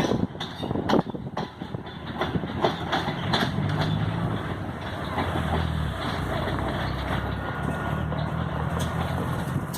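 Toshiba electric multiple unit pulling into a station: a few sharp wheel clicks in the first second or so, then a steady low hum from the train's motors and equipment that grows from about three seconds in.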